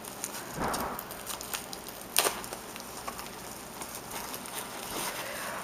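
Handling noise as a compact camera is taken out of its packaging: rustling and scattered small clicks, with a sharper click about two seconds in.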